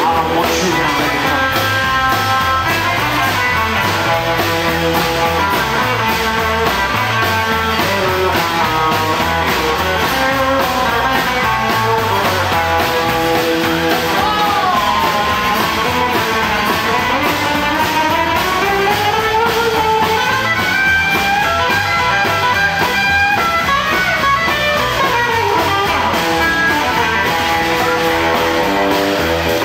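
Live rock and roll band playing an instrumental break, with no singing: an electric guitar plays a lead line with sliding and bending notes over upright bass, acoustic rhythm guitar and drums.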